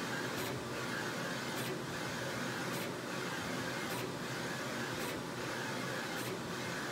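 Brother direct-to-garment printer printing: the print-head carriage shuttles back and forth over the platen with a steady mechanical whir that swells and fades with each pass. A brief sharp tick comes roughly once a second.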